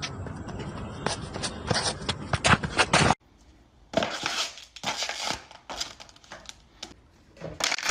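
A thin white cardboard box crumpling and crushing under a high-heeled shoe, heard as several short crinkling bursts. This follows about three seconds of louder rough noise with sharp knocks that cuts off suddenly.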